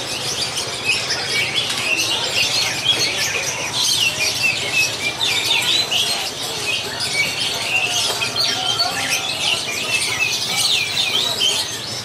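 Many caged songbirds chirping and singing at once: a dense chorus of overlapping high chirps, trills and calls with no pause.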